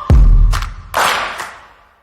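Electronic background music with a heavy bass drum beat and a sharp clap or snare between the kicks, fading away near the end into a brief gap.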